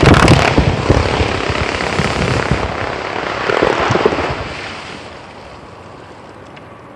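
Rock-blasting charge going off under rubber blasting mats: a sudden loud blast, then a long noisy rumble with many small knocks as rock and dirt come down. The rumble swells again about three and a half seconds in and dies away about five seconds in.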